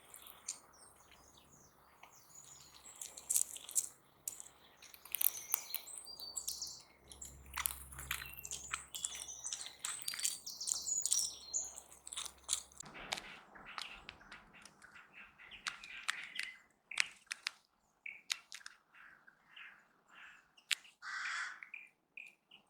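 Several birds chirping and calling, with many short, high chirps and a longer, lower call near the end.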